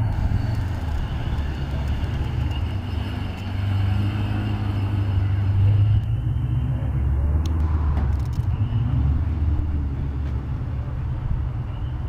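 Ford Mustang GT's V8 engine and exhaust running at low speed as the car drives off, a steady deep exhaust note that swells and eases slightly with the throttle.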